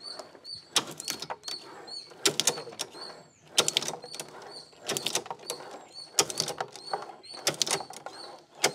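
Hand-lever cashew shell cutting machine at work: sharp clicks and knocks, mostly in close pairs, about every second and a quarter as the lever brings the blades down on each raw nut and splits the shell.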